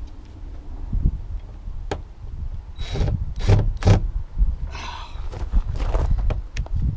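Wind buffeting the microphone as a constant low rumble, with a few short scraping, rubbing tool noises between about three and six seconds in.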